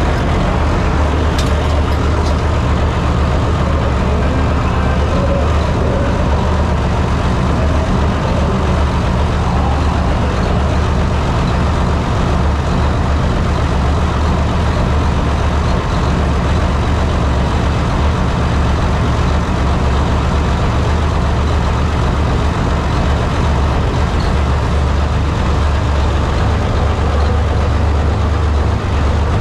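A heavy engine idling steadily, a constant low drone with no revving.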